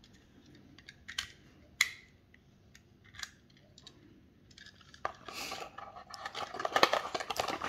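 Faint, sparse small clicks as a die-cast toy van is handled in the fingers, then about five seconds in a louder, denser crackling rustle of packaging.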